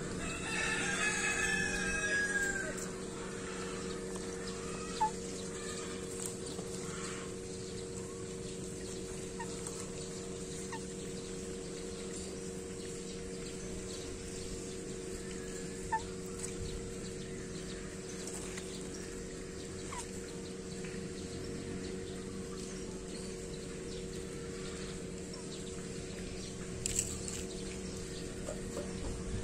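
A rooster crows once, about half a second in, a single call lasting about two seconds. After it comes a steady low hum with a few faint clicks.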